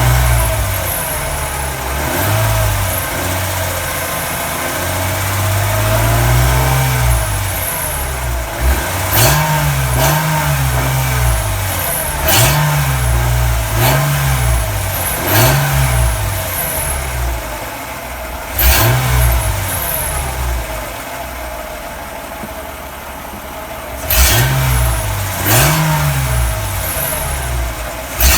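Mercedes-Benz CLK320 (W208) 3.2-litre V6 revved in repeated short throttle blips, each rising and falling back in about a second, with idle between them. Several sharp clicks are heard at times, while the owner chases a noise he suspects comes from the catalytic converter.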